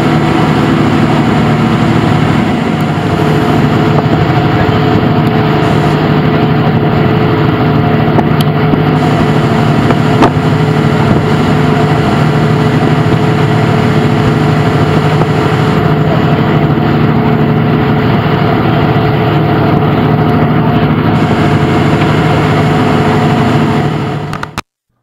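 Steady drone of a fishing boat's engine running underway, with an even rushing hiss over it; it cuts off suddenly near the end.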